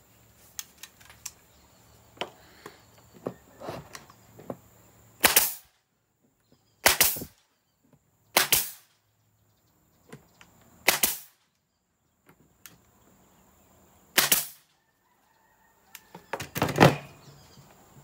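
Nail gun firing short nails into a plywood panel: six sharp shots at irregular intervals of about one and a half to three seconds, with lighter clicks and taps of the tool and panel between them.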